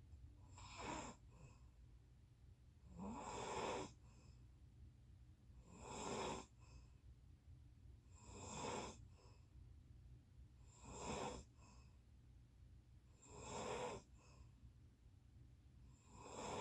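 A person snoring in a steady rhythm, one snore about every two and a half seconds.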